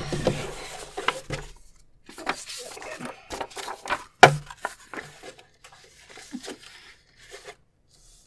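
Paper sheets rustling and sliding as a stack of insert pages is handled on a paper trimmer, with a sharp knock about four seconds in.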